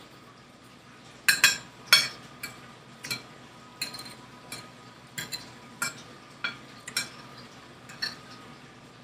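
Metal fork clinking against a dinner plate while food is picked up, about a dozen sharp clinks at irregular intervals starting about a second in, the first two the loudest.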